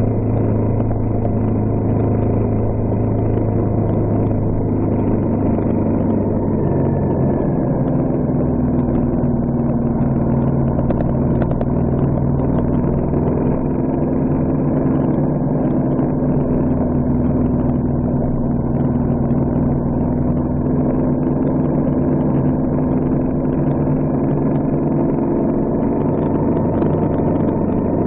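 Vehicle engine running steadily while driving along a gravel road, with the engine note shifting to a new pitch about seven seconds in.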